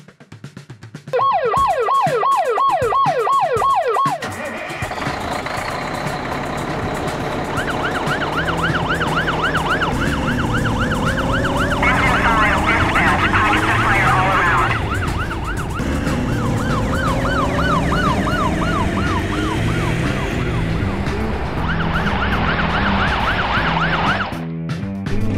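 Toy fire truck's electronic siren in a fast up-and-down yelp: a short burst near the start, then running almost continuously from about 7 seconds in, over a low steady hum.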